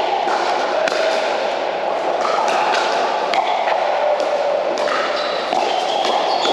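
Pickleball paddles hitting the hollow plastic ball in a rally: a string of sharp pocks at irregular intervals, over the steady din of a large indoor hall.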